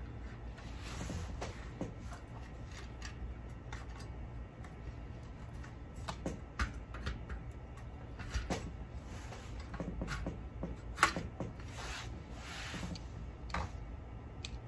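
Carriers of a drapery traverse rod sliding and rubbing along the track while the master carrier body halves are pushed together at the splice, with scattered small clicks and one sharper click about eleven seconds in.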